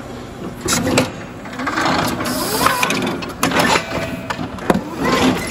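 Electric forklift moving a loaded pallet: a mechanical whir from the truck, with several sharp clunks and rattles from the mast, chains and forks.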